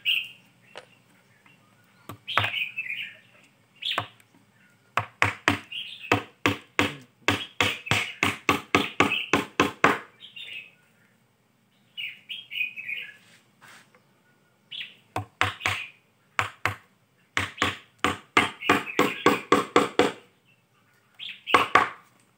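A hammer knocking on a wooden lid set on top of a hollow palm-log bee hive. The blows come in two long runs of quick strokes, about three a second, with birds chirping in the pauses.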